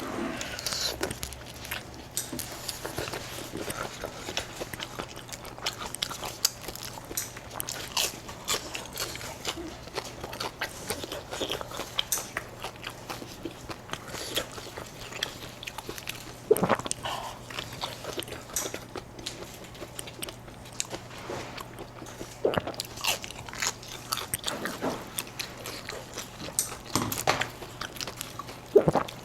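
Close-miked eating: a steady run of small wet chewing clicks and crunches, with a few louder bites, over the steady low hum of an electric fan.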